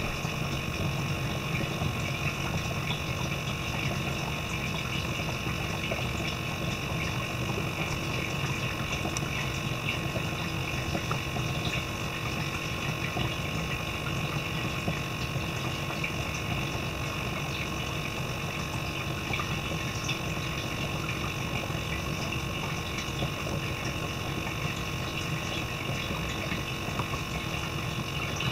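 Steady hum and rush of a small water pump, pushing water through a tube over the gills of a fish under surgery.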